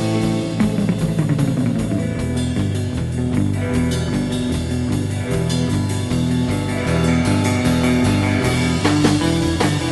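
Instrumental surf rock: electric guitar with reverb, played over bass and a drum kit.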